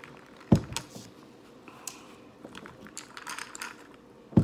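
Close-miked eating and drinking sounds: scattered light clicks and crackles, with two heavy thumps, one about half a second in and one at the very end, the last as the glass of iced drink is set down on the table.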